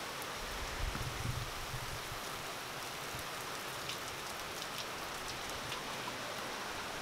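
Heavy rain pouring steadily in a severe thunderstorm. About a second in there is a brief low rumble of wind buffeting, and near the middle a few sharp ticks of nearby drips.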